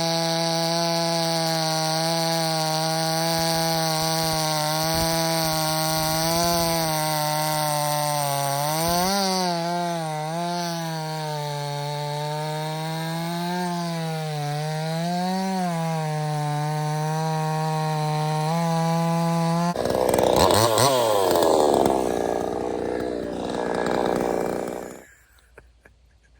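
Proyama gas chainsaw running at high revs while cutting oak. Its pitch dips and recovers several times under load. About 20 s in the sound turns rougher as the pitch falls, and it stops about 25 s in.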